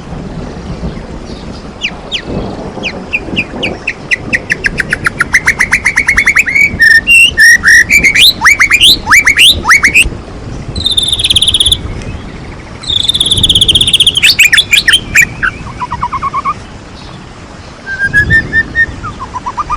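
White-rumped shama (murai batu) singing a loud, varied song of fast runs of repeated notes and sweeping whistles, broken by a couple of harsh buzzy rattles. This is the full, mimicry-rich song that keepers call 'gacor' and 'bongkar isian'.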